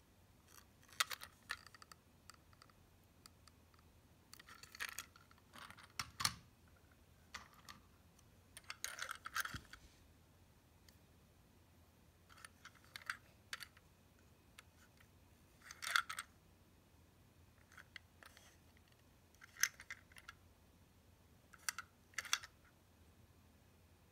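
A hard plastic toy train car being handled and turned over in the hands: light clicks and rubbing in short clusters every few seconds.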